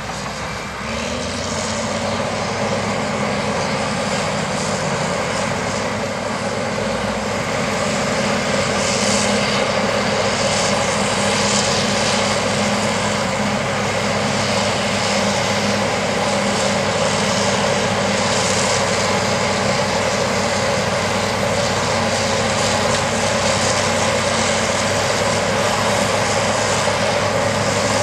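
Heavy diesel engines working under load as a Volvo T450D tractor pulls a K-Tec 1233 pull-pan scraper loading clay, with a crawler dozer push-loading behind it. A loud, steady drone that does not let up.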